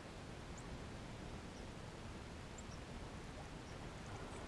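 Steady outdoor background noise: a low rumble and hiss with no single event standing out, and a few faint, very brief high chirps.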